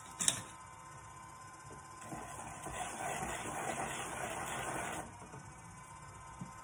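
A hand tool scraping against wet clay on a spinning pottery wheel for about three seconds, over the wheel's faint steady whine. A sharp click comes just before.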